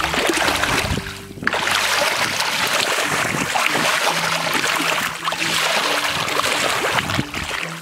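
Bare feet and legs sloshing and splashing through shallow muddy water, churning up the mud of a small pond bottom, with a brief lull about a second and a half in.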